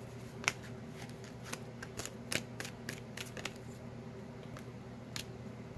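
A deck of tarot cards being hand-shuffled: soft, irregular flicks and slaps of cards against one another.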